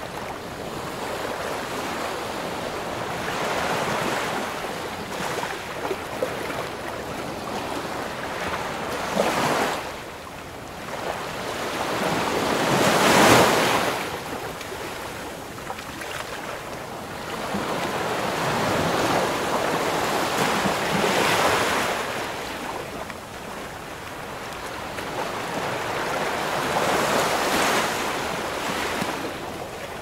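Ocean waves breaking and washing in, a series of surges that swell and fade every few seconds. The strongest comes a little before halfway through.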